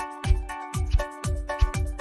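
Upbeat background music with a steady drum beat, about four beats a second, under held chords.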